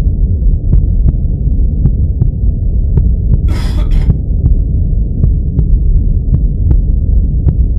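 A loud, deep, throbbing rumble with scattered faint clicks, and a short burst of hiss about three and a half seconds in.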